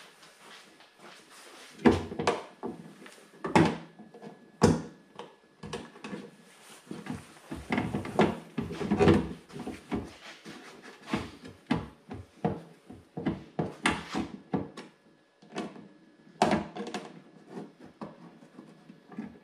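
Irregular plastic knocks and clicks of a Ford Focus ST's tail light housing being worked and pulled loose from its retaining clip by hand. The loudest knocks come about two seconds in and just after, with a busy cluster of knocks in the middle and another knock near the end.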